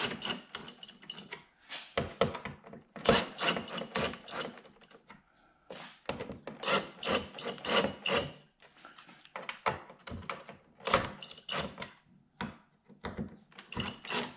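Irregular knocks, clicks and rubbing of a plastic aero winglet being held and screwed to a car's front bumper, with short runs of a cordless drill driving the screws at low speed.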